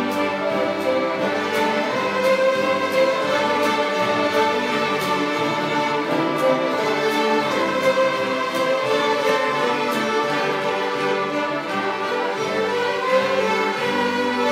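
A large ensemble of fiddles, with a cello, playing a fiddle tune together, with a steady beat.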